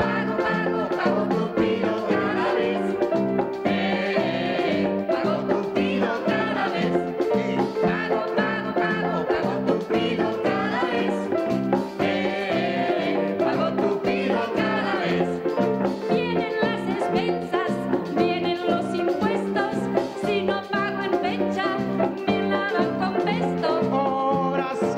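Live band with drum kit, keyboards and electric guitars playing an upbeat song with a steady beat.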